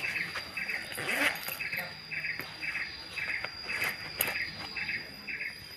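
Insects chirping: a trilled chirp repeating evenly two to three times a second over a steady high-pitched whine, with a couple of sharp clicks.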